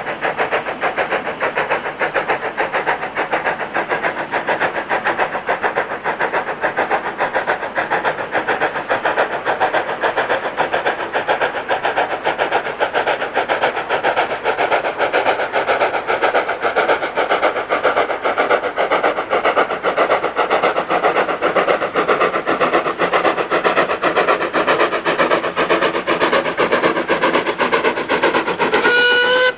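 Steam tank locomotive working hard as it hauls a passenger train, its exhaust beats coming quickly and evenly. Its whistle starts up just before the end.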